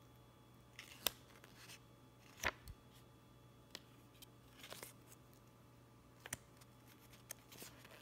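A small folded paper instruction booklet being unfolded and handled: scattered crisp paper crackles and snaps, about half a dozen, over a faint steady low hum.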